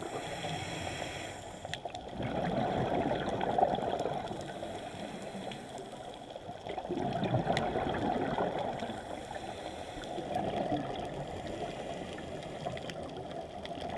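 Underwater water noise recorded during a dive: a dull rushing of water that swells and fades every few seconds.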